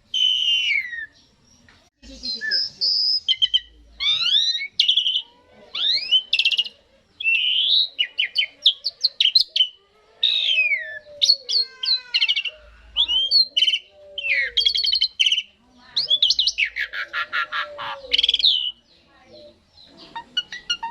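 Asian pied starling (jalak suren) singing: a long, varied song of loud whistles, gliding notes and rapid chattering trills, in phrases broken by short pauses.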